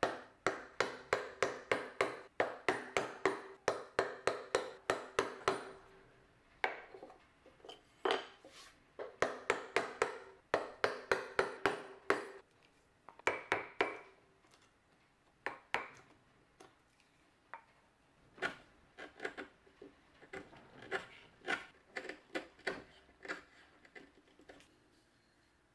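Hand chisel chopping out the waste between dovetails in Tasmanian oak: sharp taps, about three a second with a short ring, in two long runs, then thinning out to scattered taps in the second half.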